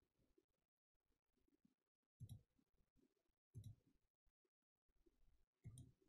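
Near silence: room tone, broken by three faint short bumps.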